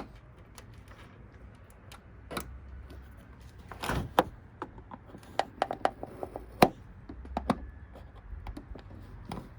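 Irregular plastic clicks and knocks from hands working along the plastic back cover of an LCD TV to release its clips, with the sharpest snaps about four and six and a half seconds in.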